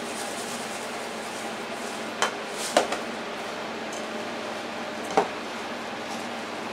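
Sharp knocks and clinks as a panko breadcrumb canister is tapped over a ceramic mixing bowl and set down on the counter, and the bowl is bumped while a hand works the kielbasa mixture: a few knocks about two to three seconds in and one just past five seconds, over a steady low hum.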